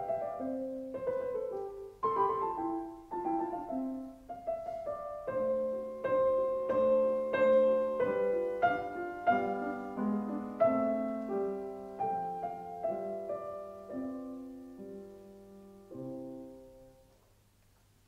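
Background piano music: a slow piece of struck notes and chords, each ringing and dying away, that fades out over the last few seconds.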